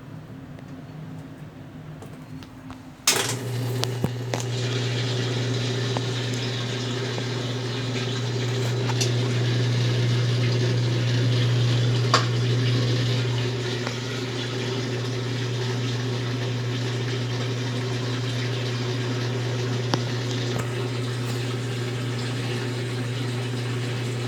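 Consul Facilite CWC10 top-loading washing machine kicking in with a click about three seconds in. It then runs with a steady low hum and the sound of water rushing.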